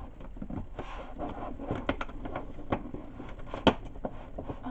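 Packing wrap being pulled off and handled: irregular crinkles and small clicks, with one sharper snap about three and a half seconds in.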